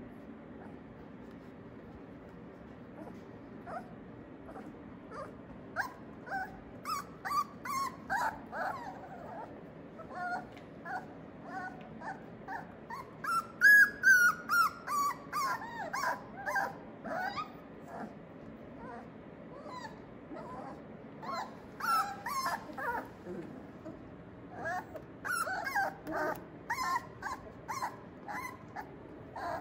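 Four-week-old Australian Labradoodle puppies whimpering and yipping in short, high-pitched calls that come in clusters. The calls start a few seconds in and are loudest about fourteen seconds in.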